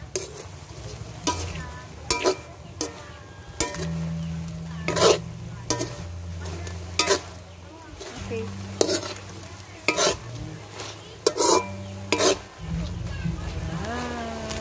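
Cooked shrimp being stirred in a metal pan: a utensil scrapes and clinks against the pan at uneven intervals, roughly once a second, over a light sizzle.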